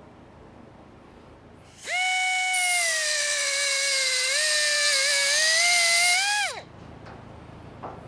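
High-speed cutoff tool cutting sheet metal for a patch panel: it whines up about two seconds in and runs for about four and a half seconds with a hiss over it, its pitch sagging a little under load. The pitch rises briefly as it comes free, then falls away quickly as it is switched off.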